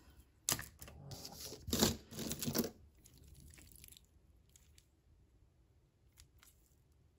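Beaded bracelets clicking and rattling as they are handled and set down on a tabletop, with a cluster of clatters in the first three seconds and then a few faint clicks.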